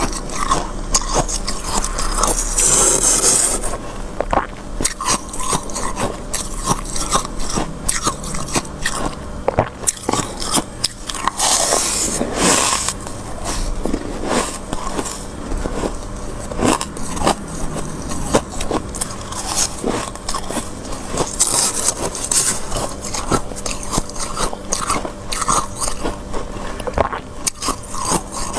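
Metal spoon scraping and digging into thick freezer frost: a dense run of crunches and crackles, with three longer scrapes.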